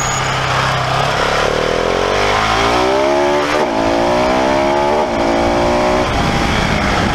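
Husqvarna 701's single-cylinder engine accelerating hard under race load, revs climbing and dropping back at two upshifts, about three and a half and five seconds in, then holding steadier. Heavy wind rush on the onboard microphone runs under it.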